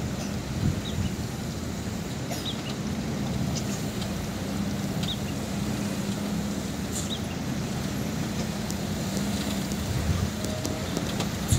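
A loaded dump truck's engine running low and steady as it comes down a dirt grade, growing a little louder near the end. A few short high chirps come through now and then.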